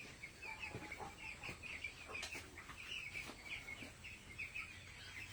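A flock of chickens peeping steadily, many short high calls overlapping, with a few faint knocks.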